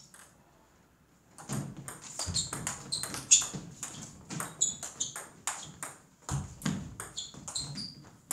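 Table tennis rally: the ball clicking off the rubber bats and bouncing on the table in a quick, even run of sharp pings, starting about a second and a half in.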